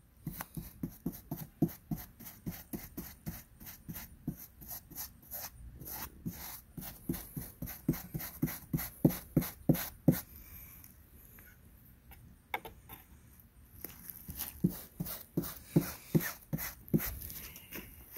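Paintbrush dragging milk paint across the shield's surface in quick back-and-forth strokes, a scratchy swish about two or three times a second, with a short lull about two-thirds of the way through.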